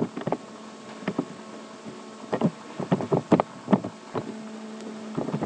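Computer keyboard being typed on: irregular key clicks, some in quick clusters, over a faint steady electrical hum.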